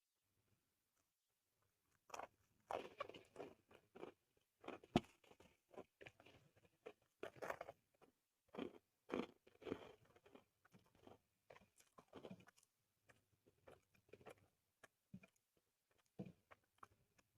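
A person chewing and crunching a mouthful of soy-sauce chicken with corn rice: a run of short, sharp crunches and wet chewing that starts about two seconds in and thins out near the end.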